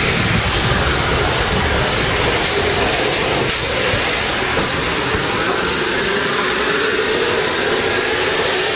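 GWR 5700-class pannier tank locomotive standing in steam, giving off a steady, loud hiss of escaping steam.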